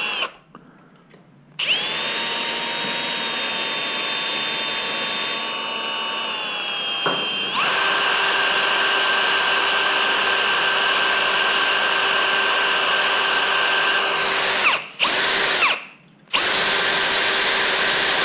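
Cordless drill running a new, sharp small bit through a bolt held in a vise: a steady motor whine in several trigger runs, stepping up in pitch about seven seconds in, with two short stops near the end.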